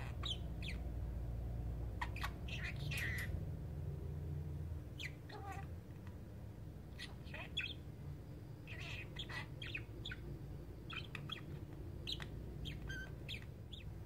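Green budgerigar sleep-talking: soft, scattered chirps and mumbled chatter in short clusters every second or two, with mimicked phrases such as "go on, it's okay".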